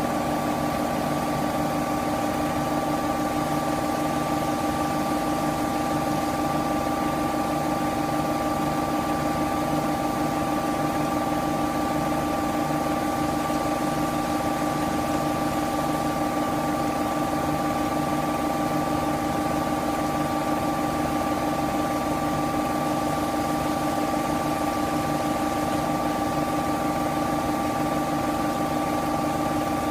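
Washing machine on its spin cycle: a steady motor hum with several constant whining tones and a low throb that pulses evenly.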